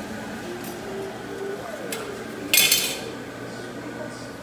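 Metal cookware clattering: one sharp, loud clink of pots or a lid about two and a half seconds in, with a few lighter clicks before it.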